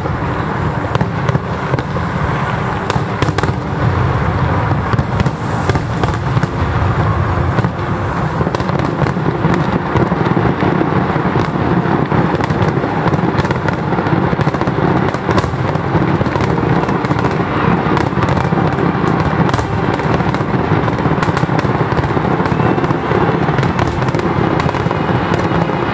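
A fireworks display: a continuous barrage of aerial shells bursting, with many sharp pops over a steady, dense low rumble of booms.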